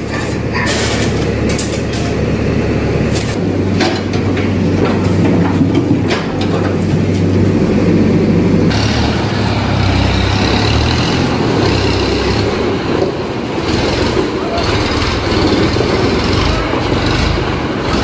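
Hand tools scraping and striking stony rubble, a few scattered knocks, over a steady engine rumble; about nine seconds in, the sound gives way to a tractor's engine running steadily.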